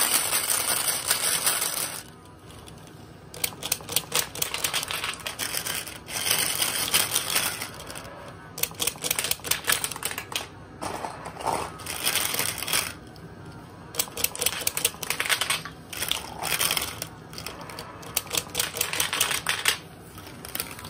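B-Daman Strike-Cobra firing marbles in rapid bursts from its magazine, with marbles clattering against a Break Bomb target field: several clusters of quick clicks and clacks, with pauses between bursts.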